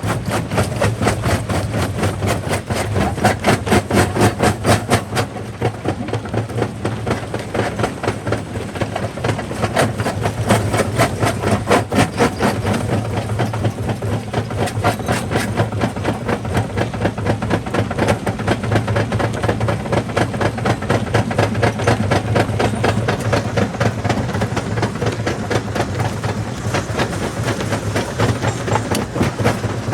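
Jaw rock crusher running, with rapid, even clattering knocks at about five a second over a steady low hum.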